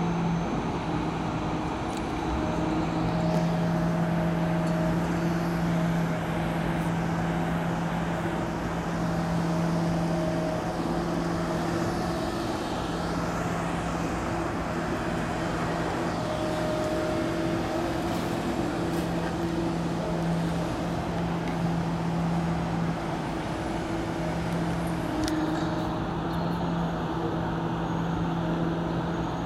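Long-reach crawler excavator's diesel engine running at a steady speed as it digs sand out of the canal, a continuous low hum over a haze of street traffic.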